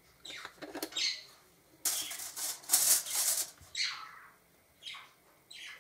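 Rustling, crackling handling sounds of a plastic oil bottle being picked up and its screw cap twisted off, in several short bursts, with the longest and loudest about two seconds in.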